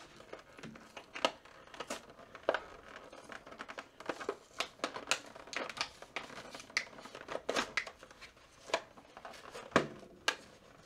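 A toy's clear plastic blister pack being prised off its cardboard backing card by hand, crinkling and crackling in irregular sharp clicks and snaps.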